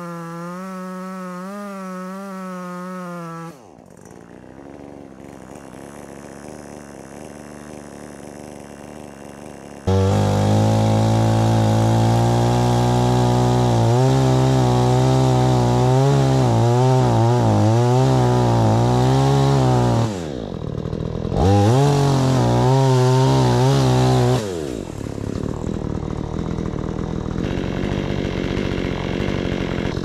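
Chainsaw cutting into a small tree trunk. It runs for a few seconds, eases to a quieter run, and about ten seconds in it runs loud for around fourteen seconds, its pitch wobbling in the cut. In the middle of that it dips and picks up again, then it eases off to a quieter run for the last few seconds.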